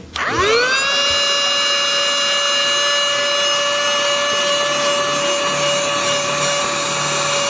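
Handheld portable car vacuum cleaner switched on with a click, its small motor spinning up within about half a second to a steady high whine. Its narrow nozzle is sucking dust from a helmet's fabric lining.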